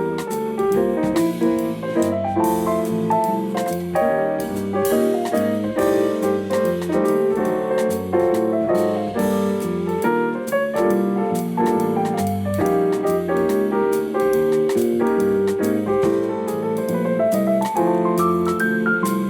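Music led by a piano-type keyboard, playing a continuous run of quick notes and chords.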